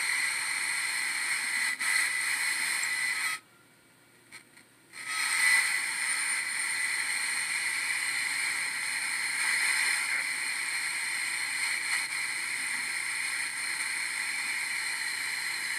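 Steady static hiss from an IFR FM/AM-1200 service monitor's receiver speaker. The monitor is tuned to an FM broadcast station but is out of lock, so only noise comes through. The hiss cuts out for about a second and a half roughly three seconds in, then comes back.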